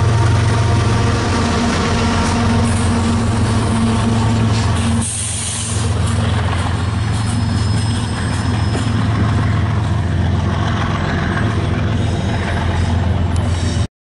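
A GE ES44C4 and an EMD SD70ACe diesel locomotive running as the rear distributed-power pair of a coal train, passing and pulling away with a steady deep engine drone. A short hiss of air comes about five seconds in, and the sound cuts off suddenly just before the end.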